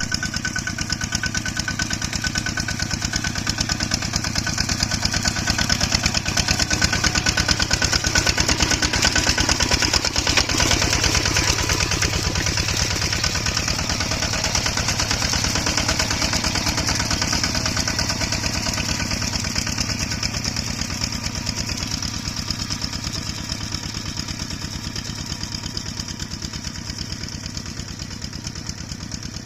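A small engine running steadily with a fast, even firing beat, loudest in the first half and gradually getting quieter over the last ten seconds or so.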